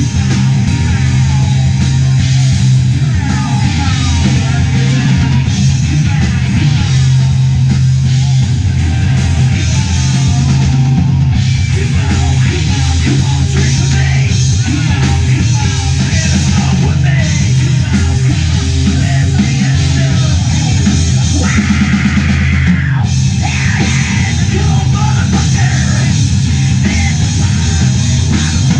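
A live rock band playing loud, heavy rock on electric guitar and drum kit, with no break in the music.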